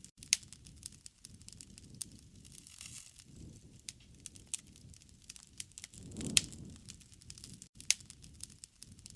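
Wood campfire crackling: scattered sharp pops and snaps of burning wood over a low, uneven flame rumble. The loudest pops come about a third of a second in and again around six seconds in, where the rumble also swells.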